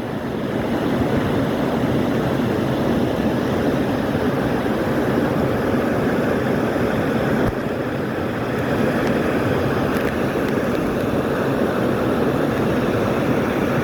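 Steady rush of a stream waterfall, a loud, even water noise that does not change.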